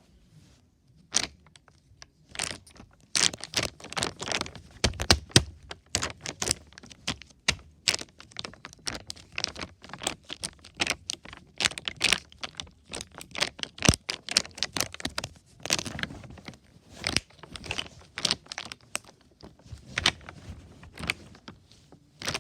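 Plastic water bottle being squeezed, crinkling and crackling in quick, irregular clicks.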